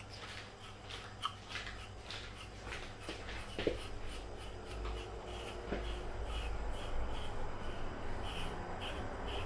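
Grooming brush stroking through a cat's fur: repeated scratchy rubbing strokes, settling into a steady rhythm of about two strokes a second in the second half.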